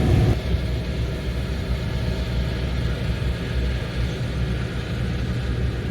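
Combine harvester engine running steadily, a low drone that drops a little in level about half a second in.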